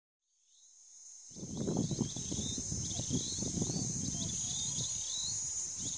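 Outdoor dry-country ambience: a steady high-pitched insect buzz with short chirping bird calls repeating over it. An uneven low rumbling noise comes in about a second in.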